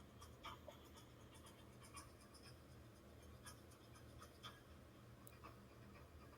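Near silence: a faint steady low hum with scattered faint, short clicks.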